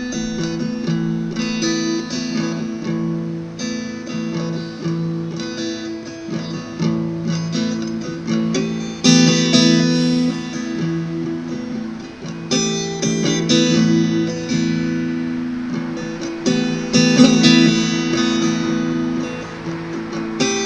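Acoustic guitar strumming and picking chords, an instrumental passage closing out a song played live.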